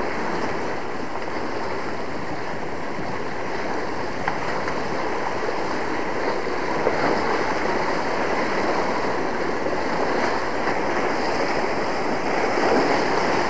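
Steady rush of seawater washing against shoreline rocks, mixed with wind across the microphone.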